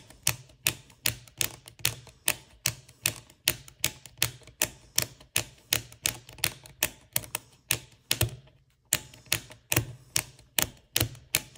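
Tektronix 7904 oscilloscope push-button switches being pressed over and over, about three sharp clicks a second with a short pause near the end. The buttons are being worked in after a soaking in WD-40 and still feel a little scratchy.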